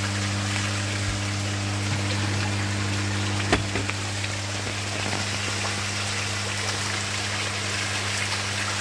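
Koi pond water splashing steadily over a low, steady hum, with a single click about three and a half seconds in.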